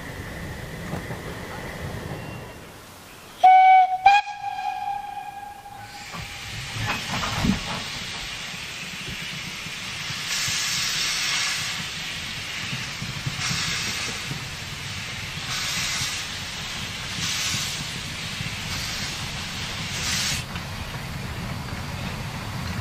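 Narrow-gauge steam locomotive's steam whistle, two blasts about 3.5 s in, the second longer. Then steam exhaust hissing in slow, regular puffs about every second and a half as a Saxon IV K locomotive works a short goods train.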